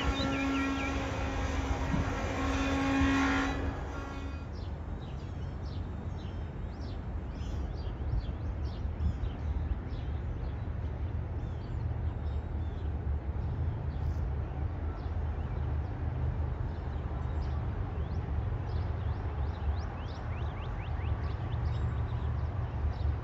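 A distant locomotive horn sounds twice in the first few seconds, then a steady low rumble carries on with birds chirping over it.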